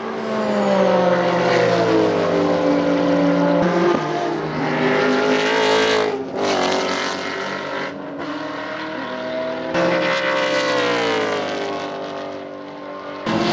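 V8 engine of a Holden VX Commodore SS L98 circuit race car under hard driving. The revs rise through several quick gear changes, each one a sudden break in pitch, and fall away again as it slows.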